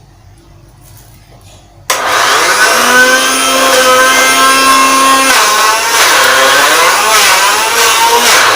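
Electric blender starting abruptly about two seconds in and running loud, its motor whine wavering up and down in pitch as it grinds a thick bait mix of noodles, tempe, egg yolk, garlic and turmeric.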